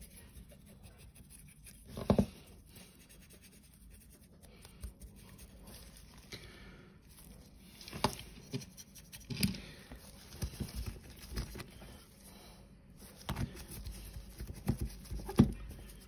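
Stiff dry brush scratching and scrubbing over a small model car, with light knocks and taps as the model is handled in the fingers and set down on a cutting mat near the end.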